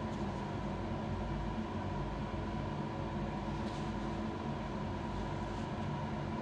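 Steady mechanical hum of room ventilation, even in level and carrying several steady tones, with a faint click a little over halfway through.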